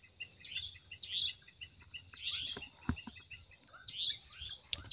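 A night chorus of small calling animals: many short, high chirps repeating in clusters, with a few faint clicks.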